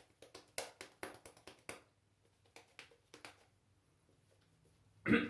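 Shaving brush working soap lather on the face, making a run of short wet clicks and smacks, several a second for about two seconds, then a few scattered ones before it stops.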